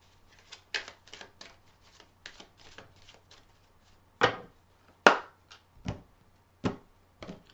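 A deck of oracle cards shuffled by hand, with many small quick card clicks. In the second half come five or six sharper knocks, about a second apart, as the deck meets the wooden tabletop.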